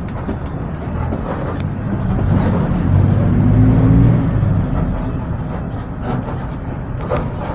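Volksbus/MAN 17-230 OD city bus running, its engine pulling harder about two seconds in, loudest around three to four seconds in, then easing off.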